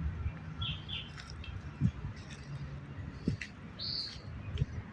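Birds chirping: two quick high chirps about half a second in, then a longer one near the end, over a low steady hum.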